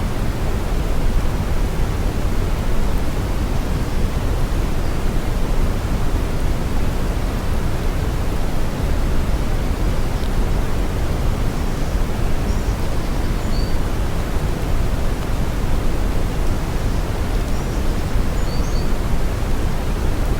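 Synthetic brown noise: a steady, deep hiss weighted heavily toward the low end, with no change in level.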